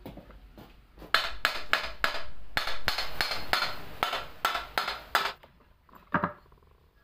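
A small hammer striking a steel blower housing in a rapid run of sharp, ringing metallic blows, about four a second, for some four seconds, then one more blow after a short pause.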